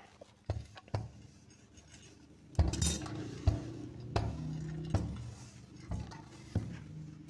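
Metal electric clothes iron being set down and pressed over a small piece of fabric on a cloth-covered table: about eight knocks, the loudest about two and a half seconds in.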